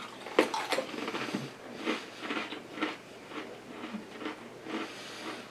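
Two people crunching and chewing Pringles potato chips: an irregular run of crisp crunches, about two a second.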